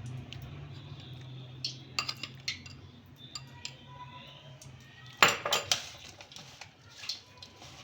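Kitchen utensils clinking against a bowl and container: scattered sharp clinks, with a louder run of several clinks about five seconds in.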